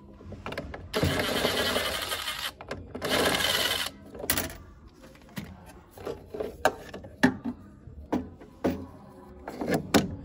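Plastic furnace parts being handled and fitted: a run of light clicks and knocks as the yellow tubing and a white plastic fitting are pushed into place. Before this comes a steady rasping noise lasting about three seconds.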